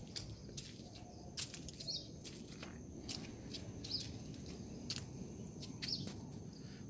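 Birds chirping, with a short high call about every two seconds and a few sharp ticks, over a steady low rumble.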